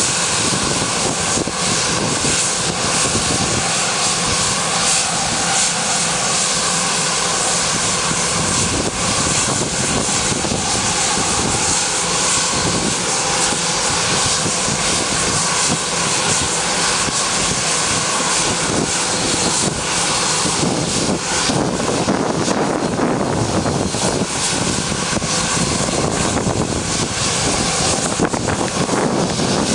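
A Bombardier Global Express's Rolls-Royce BR710 turbofan engines running steadily with the jet standing still: a continuous whine of several steady tones over a loud rushing hiss.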